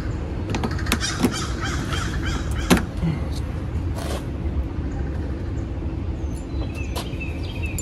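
A few sharp clicks and knocks of a screwdriver prying plastic trim pins loose around a car's cowl, the loudest about two and a half seconds in, with birds calling over a steady background hum.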